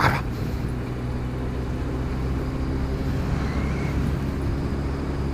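Motorcycle engine running steadily at a cruise, heard from aboard the moving bike with wind and road noise.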